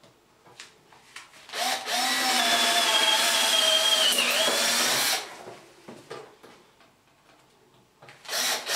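Cordless drill with a wood drill bit pre-drilling through 3x2 softwood timber: the motor whines as it spins up and runs for about three and a half seconds, dipping in pitch briefly as the bit bites, then stops. It starts again near the end for the next hole.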